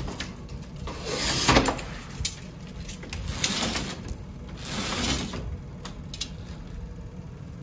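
A roller window shade being raised, heard as three noisy swells about a second and a half apart.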